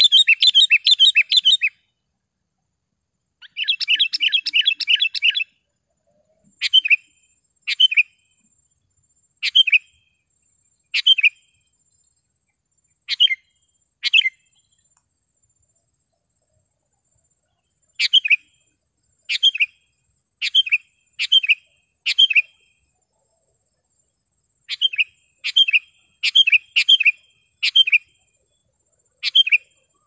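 Sooty-headed bulbul calling: two quick chattering runs of notes in the first five seconds, then short sharp notes about a second apart, with a pause of a few seconds midway before the notes pick up again. A faint steady high whine lies beneath from about six seconds in.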